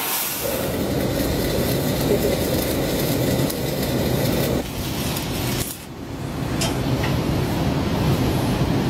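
Welding arc crackling over a steady low rumble, with a brief break about six seconds in.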